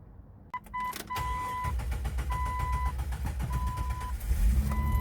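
Jeep Wrangler engine starting after its throttle body has been cleaned: a couple of clicks, then the engine turns over and runs, growing louder and steadier about four seconds in. A dashboard warning chime beeps about once a second throughout.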